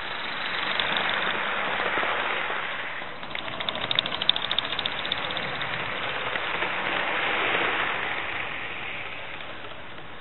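Gauge 1 live steam locomotive and its train passing close by: a rushing noise swells as the engine approaches, a run of rapid sharp clicks as it goes past about three seconds in, then the cars roll by in a second swell that fades away.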